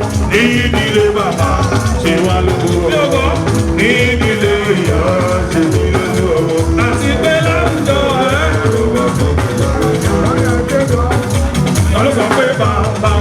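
Live band music with a steady beat and singing voices, as in Yoruba church praise music.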